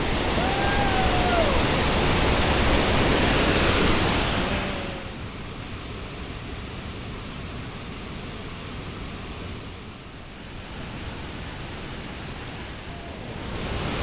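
Vinnufossen waterfall rushing: a steady hiss of falling water. It is loud for the first four seconds or so, then drops to a softer, even rush.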